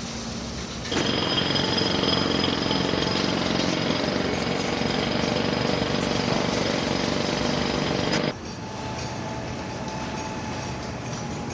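Construction site noise: a loud machine starts abruptly about a second in, runs steadily for about seven seconds with a dense rattling din and a high whine, then cuts off suddenly, leaving a constant low rumble.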